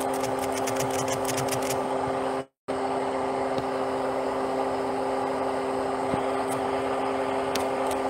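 Steady mechanical hum of a running car heard inside the cabin, a few held tones over a rushing noise, with a few faint ticks at first. The sound cuts out completely for a moment about two and a half seconds in.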